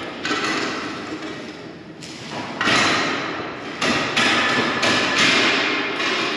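Irregular metal bangs and clatter as steel support legs are knocked into place under a perforated steel grain bin floor. Each hit rings on inside the corrugated steel bin.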